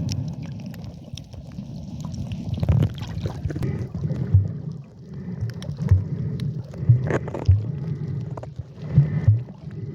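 Sea water sloshing and gurgling around a camera during snorkeling, with irregular low knocks.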